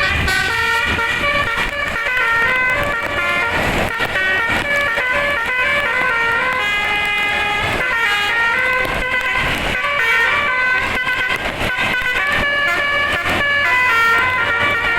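Bus telolet horn, a set of air horns driven by a DAV tune module, playing a fast melody of stepped notes without a break.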